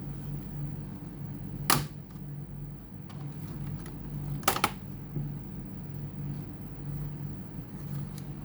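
Two sharp clicks about three seconds apart, the second a quick double click, over a steady low hum.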